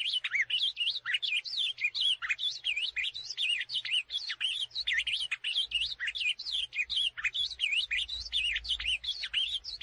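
Ultramarine grosbeak (azulão) singing: a fast, unbroken warble of quick sliding notes that swoop up and down, with no pauses.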